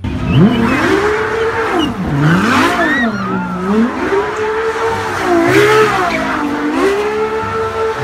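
Ferrari LaFerrari's V12 revving hard during a burnout, its pitch climbing and dropping several times, with the rear tyres squealing.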